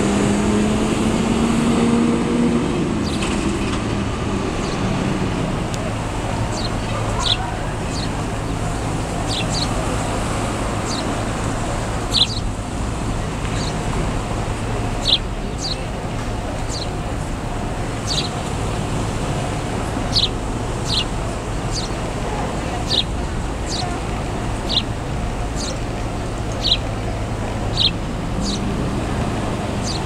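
House sparrows chirping: short, sharp, high chirps every second or two, starting a few seconds in, over a steady low hum of traffic.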